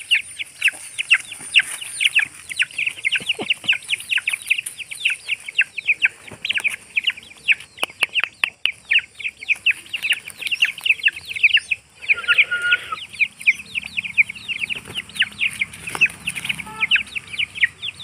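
Young parrot-beak Aseel chicks peeping without pause, a fast run of short falling chirps, as they crowd round to peck at a tomato.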